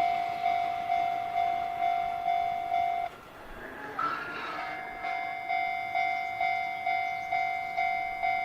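Japanese railway level-crossing alarm ringing its repeated electronic bell tone, about two strikes a second. The ringing stops about three seconds in and starts again about a second and a half later.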